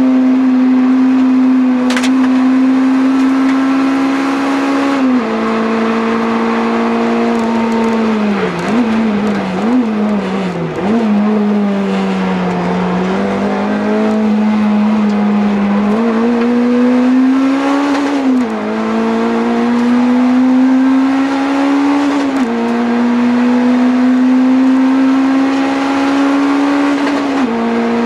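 Honda Integra DC5's 2.0-litre four-cylinder engine at hard throttle, heard from inside the cabin. Its note climbs steadily and drops sharply at each upshift. Near the middle the pitch falls with quick brief rises as the car brakes and downshifts for a corner, then it climbs through the gears again.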